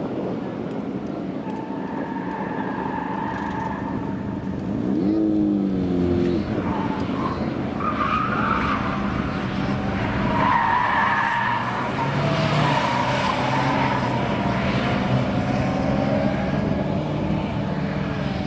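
Older Škoda saloon cornering hard, its engine revving up and down, with tyres squealing on asphalt through the turns, most strongly in the second half.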